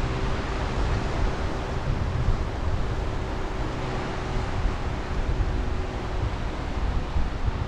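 Sea waves washing on the shore, with gusting wind rumbling on the microphone.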